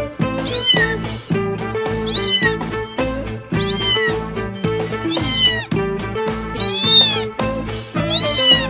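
A cat meowing six times, about every second and a half, each call rising then falling in pitch, over background music with a steady beat.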